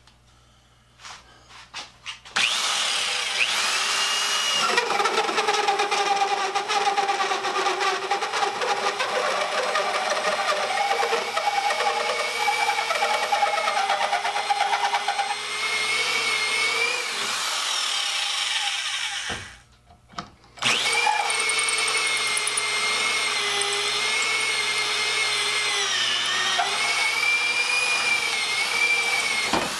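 Corded electric drill turning a sharp hole saw through a thick wooden board. The drill starts about two seconds in, stops briefly about two-thirds of the way through, then starts again. Its motor whine sags as the saw is forced near its maximum cutting depth.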